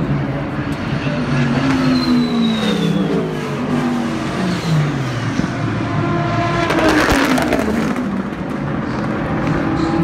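Race car engines going by at speed, each one's pitch falling as it passes; one loud, close pass comes a little before two thirds of the way through, over a steady low engine hum.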